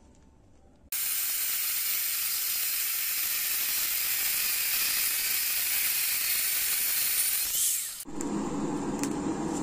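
Electric angle grinder with a cutting disc slicing through a hardened steel bearing ring: a steady, harsh hiss that starts about a second in and stops suddenly near the end. Right after, a lower steady hum takes over.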